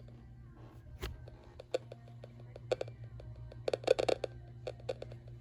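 Weather radio receiver losing its signal mid-broadcast: the synthesized voice drops out, leaving scattered irregular crackles and clicks, bunched about three and four seconds in, over a steady low hum.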